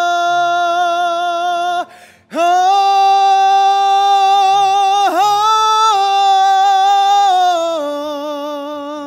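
A young man singing unaccompanied in a high voice. He holds one long note, breaks off for a breath about two seconds in, then holds another long note that dips briefly in the middle and steps down in pitch as it fades near the end.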